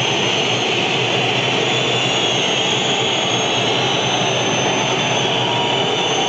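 Large stadium crowd making a loud, steady, unbroken noise.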